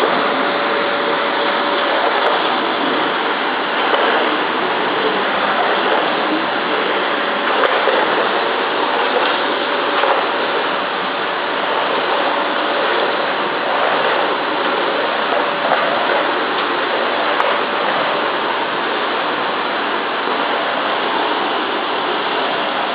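Vacuum cleaner running steadily with a constant rushing hiss and a faint steady whine.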